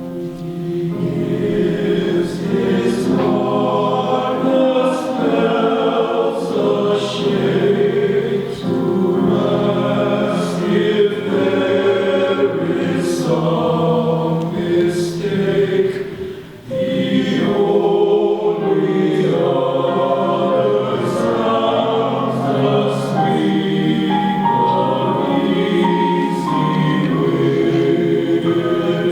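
High school men's chorus singing in several parts, with a brief drop about sixteen seconds in as the singers breathe between phrases.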